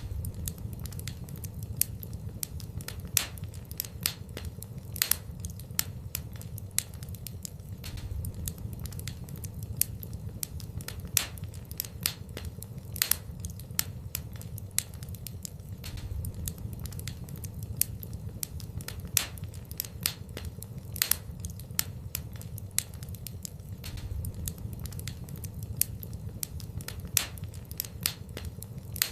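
Wood fire in a fireplace crackling, with frequent irregular sharp pops over a low steady rumble of the flames. The same run of pops repeats about every eight seconds, as in a looped recording.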